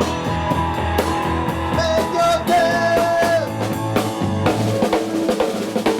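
Rock band playing an instrumental passage between sung lines: drum kit with kick, snare and rimshots under a bass line and a melodic electric guitar line.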